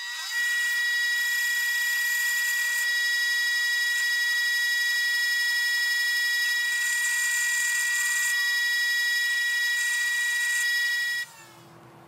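Bench grinder grinding the end off a bolt to shorten it. It gives a steady, high-pitched whine with a hiss of metal on the wheel, and cuts off suddenly near the end.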